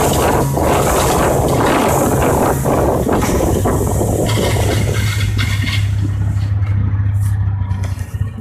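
Motor engine running with loud rushing noise, as of travel, which falls away about five seconds in as it slows, leaving a steady low engine hum.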